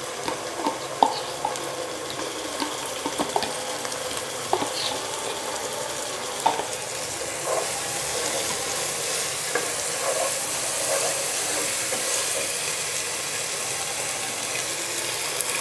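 Sliced onions and ginger-garlic paste sizzling in hot oil in a large pot, stirred with a wooden spoon that clicks and scrapes against the pot. The sizzle grows steadier and a little louder about halfway through.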